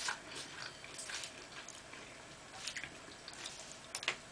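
Faint, wet chewing and mouth sounds of someone eating a shrimp stir fry, with a few soft clicks; the sharpest comes about four seconds in as a fork goes to the mouth.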